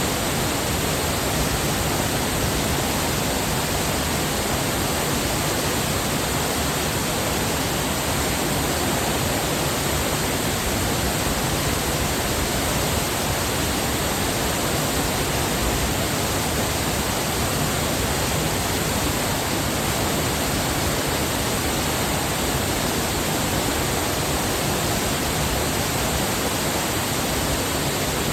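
Waterfall pouring, a steady rushing of falling water without break.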